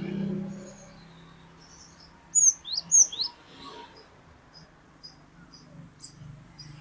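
Cinereous tit (glatik batu) calling: two loud, sharp whistled notes about two and a half seconds in, followed by a run of faint, short, evenly spaced chips. A low hum runs under the first second.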